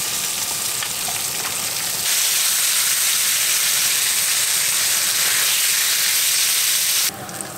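Bacon sizzling in a nonstick frying pan on a butane camp stove, a dense, steady hiss that grows louder about two seconds in and cuts off suddenly near the end.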